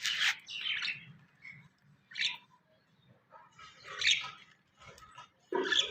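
Birds calling: about four short, high-pitched chirps spaced a second or two apart.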